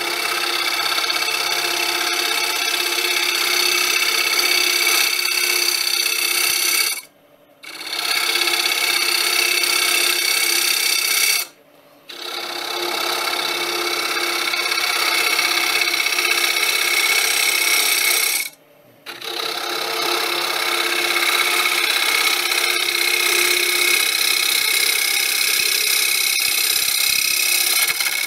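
Wood lathe spinning a bowl while a carbide-tipped turning tool scrapes and cuts its inside, pulled outward from the centre: a steady machine whine under a rasping hiss of cutting. The sound breaks off abruptly three times, briefly each time.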